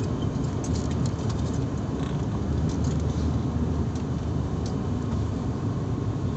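Steady engine and airflow rumble inside a passenger airliner's cabin in flight, with a few faint ticks over it.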